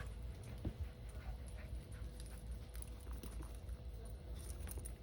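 Cavalier King Charles spaniels at play with a toy, heard faintly as small scattered dog sounds over a steady low rumble.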